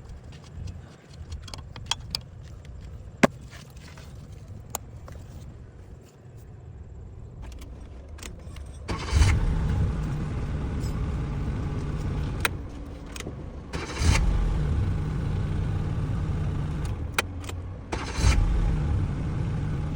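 Car engine being cranked by the starter motor without starting. After a few faint clicks, the cranking begins about nine seconds in and restarts twice, about five and four seconds apart, never catching.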